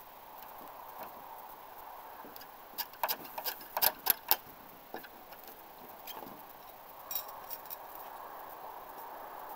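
Throwing knives being pulled out of a wooden plank target and clinking against one another in the hand: a quick cluster of sharp metallic clicks about three to four and a half seconds in, with a few fainter clinks later.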